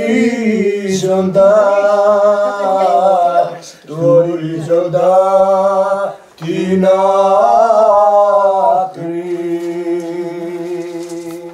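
Men singing unaccompanied in long, wavering phrases with short breaths between them, the last phrase ending on a long held note.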